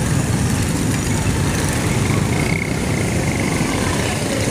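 Busy street traffic: motorcycle and auto-rickshaw engines running as they pass close by.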